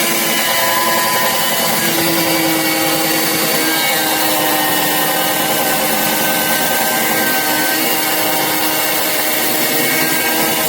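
Rinoxar 8-inch battery mini chainsaw running steadily, its chain rubbing against wood instead of cutting, over a steady motor whine. The chain is failing to bite, and the friction heats the wood until it smokes.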